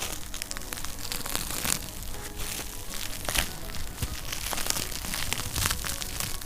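Fireplace fire crackling, with many irregular sharp pops and snaps close together.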